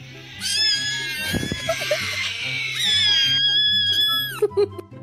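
A cat's long, drawn-out yowl, held for about three seconds and falling away at the end, over background music with a steady beat.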